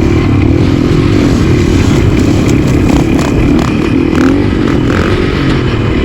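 KTM supermoto motorcycle engine running at steady, fairly high revs while the bike is held up in a wheelie, its pitch wavering slightly with the throttle.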